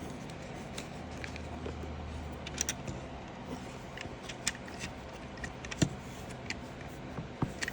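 Scattered light clicks and small rattles of a packet of wall anchors and screws being handled.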